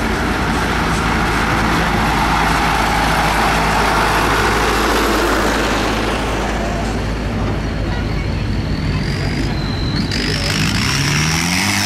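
Tractor engines running as tractors drive past in a parade. About ten seconds in, an engine revs up with a rising note.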